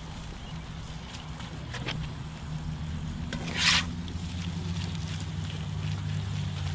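Ground beef sizzling in a cast-iron skillet on a grill, with scattered faint crackles over a steady low hum. About three and a half seconds in, a short loud burst of sizzle and scraping comes as the meat is turned over with a metal spatula.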